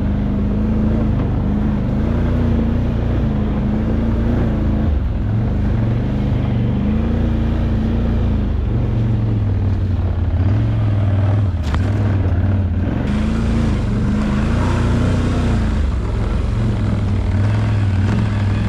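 Can-Am Outlander XMR 850 ATV's V-twin engine running while being ridden, its pitch rising and falling again and again with the throttle.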